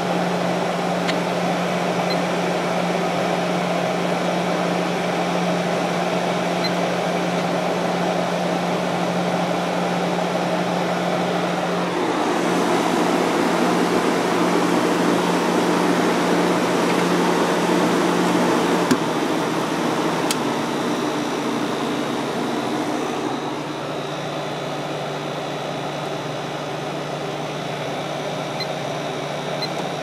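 Fedders 7500 BTU window air conditioner running with its fan on high: a steady rush of air over the compressor's hum. About twelve seconds in, the airflow noise grows louder, and it eases back down after about twenty-three seconds.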